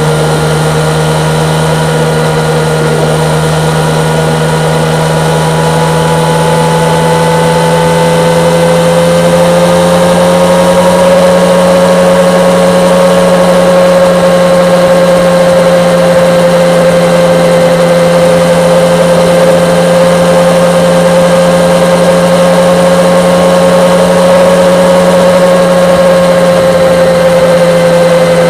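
Yamaha MT-09's three-cylinder engine running at a steady cruise, its pitch rising a little about ten seconds in and then holding level.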